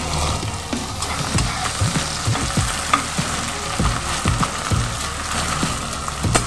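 Sliced onions frying in hot mustard oil in a metal kadai, sizzling steadily, while a wooden spatula stirs them with scattered scrapes and knocks against the pan.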